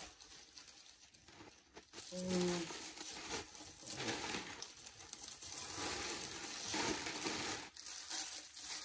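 A thin plastic carrier bag crinkling and rustling as hands rummage in it and lift out a plastic-wrapped bag of spinach. It is fainter at first and gets louder about two seconds in.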